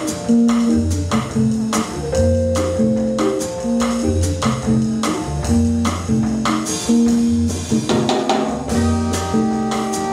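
Small jazz combo playing an instrumental tune: the drum kit keeps a steady beat under a repeating upright-bass and guitar figure. About nine seconds in, held higher notes come in over the groove.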